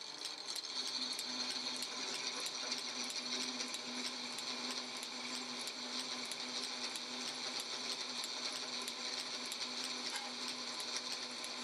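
Drill press boring a hole through a thick steel plate: a steady machine and cutting sound with a fast, even ticking of about five clicks a second.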